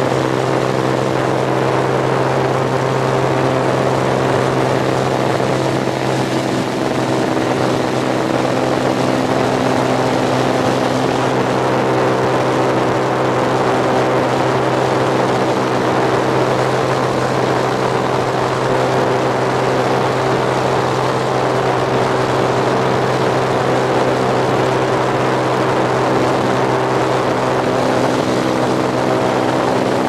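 Engine and propeller of a small high-wing light aircraft droning steadily in flight, heard from inside the cabin: a strong, unchanging low hum over a hiss of rushing air.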